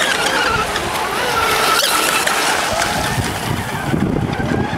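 Several radio-controlled mono-hull racing boats running together, their motors whining at a high pitch that rises and falls as they race past and swing round the buoys, over a steady hiss of spray.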